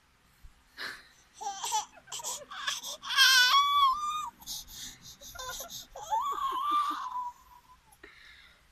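Nine-month-old baby squealing and laughing in a string of very high-pitched bursts, with a long wavering squeal about three seconds in.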